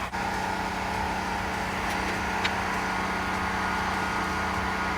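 Steady machine hum from a running shop motor, even throughout with no change in load. There is a faint click about two and a half seconds in.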